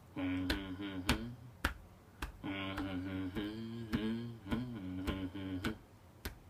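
A man humming a low, wordless chant in two phrases while thumping his chest with his fist in a steady beat, about two thumps a second.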